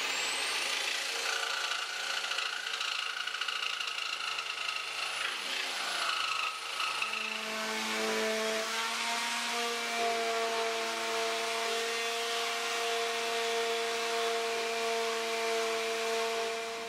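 Electric jigsaw cutting thin plywood, the motor whining up as it starts; about seven seconds in the sound settles into a steadier motor hum.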